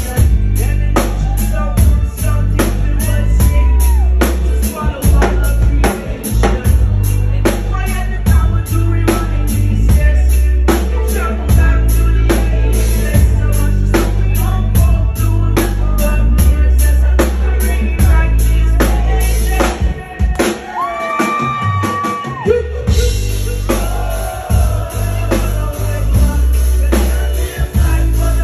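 Live band performing a song: a lead singer on a microphone over drum kit and bass guitar with a steady beat and heavy bass. The drums and bass drop out for about two seconds near the end, leaving the voice, then come back in.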